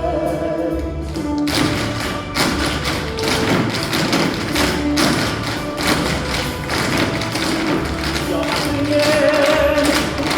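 Tap shoes striking the floor in quick, irregular rhythms over recorded music, starting about a second and a half in.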